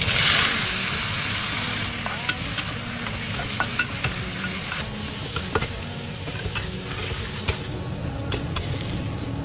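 Food stir-frying in a hot pan: a steady sizzle, loudest at the start and then settling, with irregular clicks and scrapes of a spatula against the pan.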